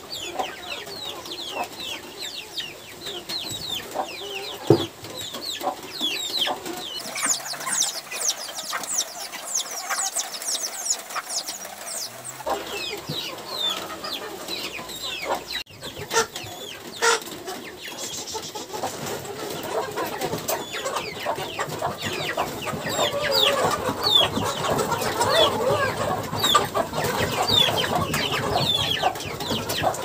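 Poultry calling: chickens clucking among many short, high, falling peeps of young birds, the lower clucking growing denser in the second half. A single sharp knock about five seconds in.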